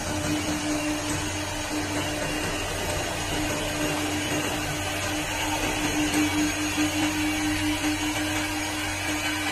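CNC wood lathe running while it turns wooden cue stick blanks: a steady motor whine over a low hum and machine noise, swelling a little in loudness now and then.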